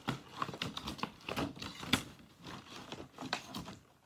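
Clear plastic case being handled and fitted over, giving a string of light clicks and taps, the sharpest about two seconds in.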